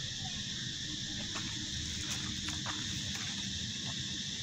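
Steady, high-pitched chorus of insects in the trees, with a few faint short clicks in the middle.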